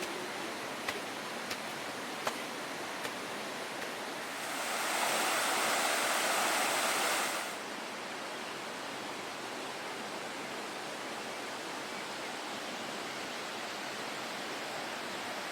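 Steady rushing outdoor noise with a few faint sharp clicks in the first few seconds, swelling louder for about three seconds near the middle and then settling back.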